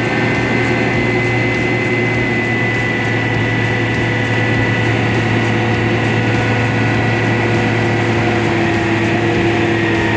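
Diesel engines of a ready-mix concrete truck and concrete pump running steadily at a constant speed while the concrete is churned before pumping, with a faint high ticking about twice a second.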